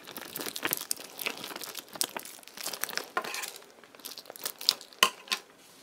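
Glue-slick red rubber balloon full of Orbeez water beads being squeezed and kneaded by hand, giving many small irregular crackling clicks; about five seconds in, a couple of sharper snips as scissors cut into the balloon.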